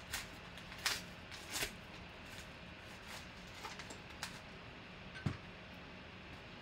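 Yellow paper envelope being handled and torn open, a few short dry crinkles of paper, then a hard plastic card holder set down on the table with a single knock a little after five seconds in.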